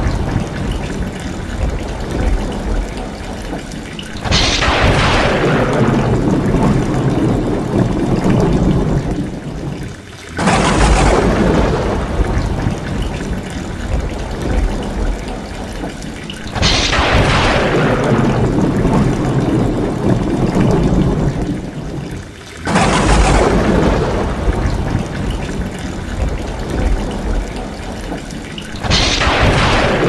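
Heavy rain pouring off roof tiles, with thunder: a sudden crash that fades into rumbling comes again and again, about every six seconds.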